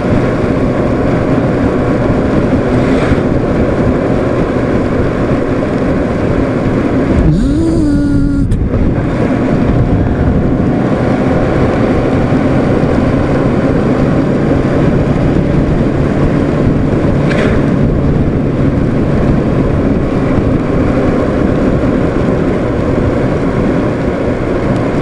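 Steady wind rush and engine hum of a Honda CBR600RR sport bike cruising on a wet highway in the rain. About seven seconds in, the rush briefly drops and the engine note dips and climbs again.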